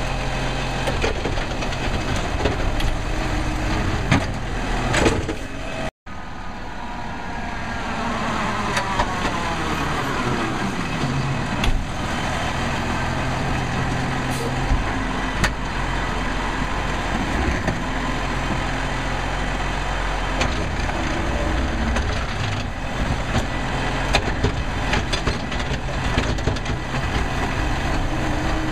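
Automated side-loader garbage truck's diesel engine running steadily while its hydraulic arm works, with scattered clanks of the lifting gear and carts. Shortly after a brief break about six seconds in, a whine falls in pitch.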